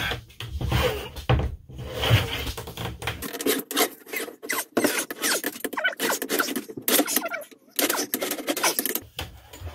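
A long flat steel bar scraping and rubbing against a plywood form and table top as it is bent by hand into a curve, with irregular scrapes and knocks throughout.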